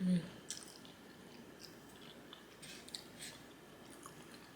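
Close-miked chewing of spaghetti with ground beef and tomato sauce: soft, wet mouth clicks and smacks scattered through. A brief low voiced sound at the very start is the loudest moment.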